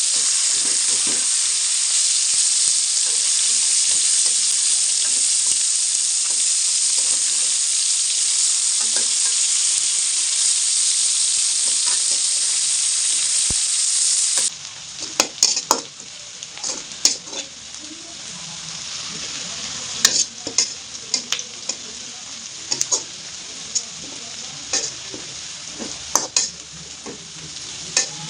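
Fish pieces frying in hot oil with a loud, steady sizzle. About halfway through the sizzle suddenly drops to a quieter level, and scattered sharp clicks and knocks of a utensil against the pan come through it.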